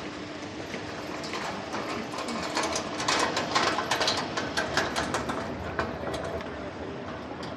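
Rapid, irregular metallic clattering from a hand truck carrying a gas cylinder as it rolls over cobblestones, loudest in the middle and fading out near the end.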